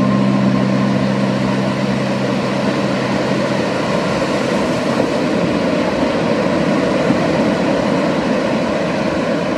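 Steady rushing noise of a motorboat under way: engine, water and wind on the microphone together. Held notes of background music die away in the first few seconds.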